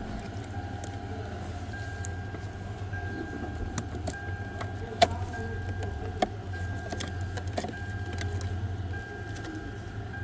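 A steady low hum with a thin electronic beep repeating about once a second, and a few sharp metallic clicks, the loudest about five seconds in.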